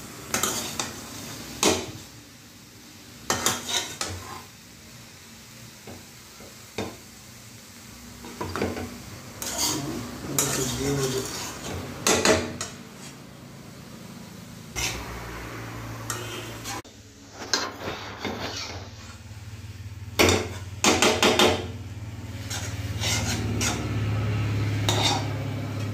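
Metal spatula scraping and clanking against a kadai as broccoli and vegetables are stir-fried, in irregular strokes with the food sizzling between them. About halfway through, a steady low hum sets in and grows louder near the end.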